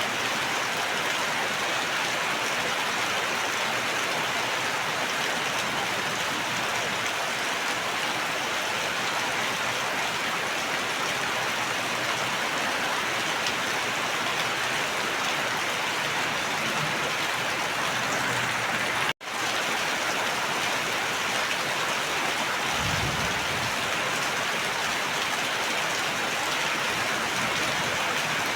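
Steady rain, an even hiss of falling drops. The sound cuts out for an instant about 19 seconds in, and a brief low rumble follows a few seconds later.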